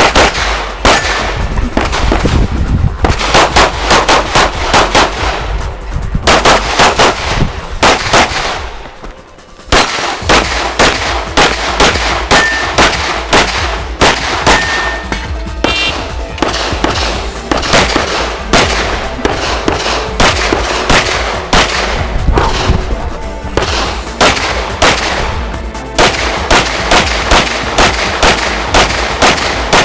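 Rapid strings of pistol shots from an SJC Glock 17 Open-class competition pistol, fired in quick succession with a short pause about nine seconds in. Background music plays underneath.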